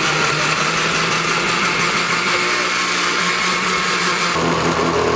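Countertop blender running steadily at speed, its motor whirring as it chops fruit, broccoli and chicken in water; the motor note shifts a little about four seconds in.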